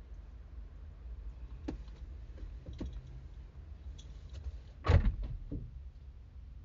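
A few light clicks, then one loud thump about five seconds in with smaller knocks after it, over a low steady rumble.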